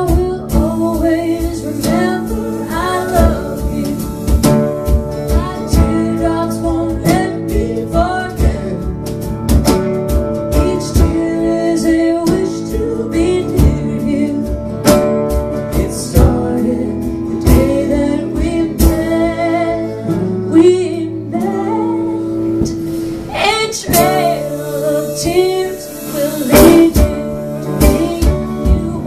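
A woman singing live, accompanying herself on a strummed mandolin.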